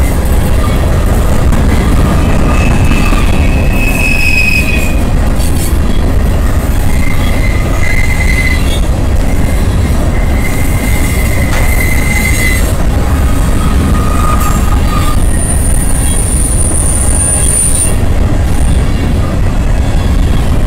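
Freight train of covered hopper cars rolling past close by: a steady heavy rumble of steel wheels on rail, with high-pitched wheel squeals that come and go several times, each lasting one to three seconds.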